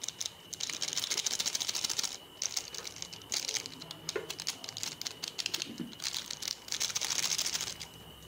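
Foil spice sachet crinkling and rustling as it is squeezed and shaken to empty out the powder, in several bursts of dense crackle with short pauses between.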